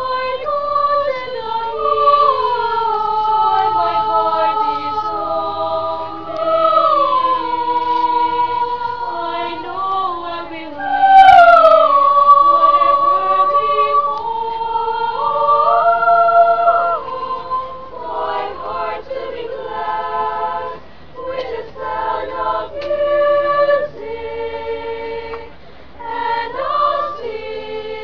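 A choir singing unaccompanied, several voices in harmony holding long notes that step up and down together. From about two thirds of the way in, the notes grow shorter and more broken.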